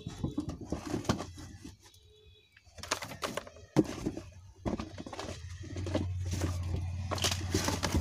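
Clear plastic packaging crinkling and rustling in short bursts as boxed table-fan parts and the wire fan guard are handled, with one sharp click a little before halfway. A low steady hum comes in near the end.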